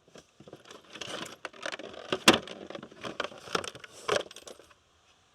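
Fishing lures and small tackle rattling and clinking as they are rummaged through in a boat's storage compartment, with one sharper knock about two seconds in.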